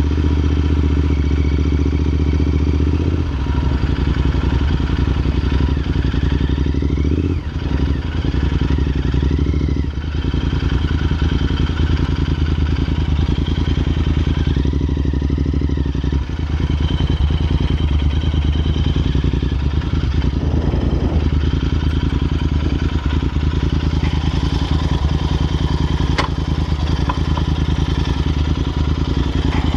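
Royal Enfield Interceptor 650's parallel-twin engine running through aftermarket Red Rooster exhausts while riding. The engine note is loud and low, changing pitch several times, with brief dips in loudness a few times.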